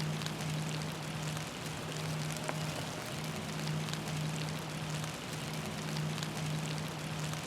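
Steady rain with scattered drops ticking close to the microphone, over a constant low hum.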